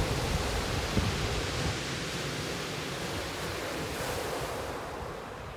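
Surf breaking and washing over a shingle beach, with wind buffeting the microphone.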